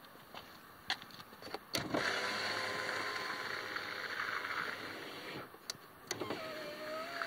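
Newly replaced power window motor in a 2004 Dodge Grand Caravan's driver door, worked from the door switch. After a few switch clicks the motor runs the glass down for about three and a half seconds and stops. After two more clicks it starts again about six seconds in, carrying the glass back up with a slightly rising tone.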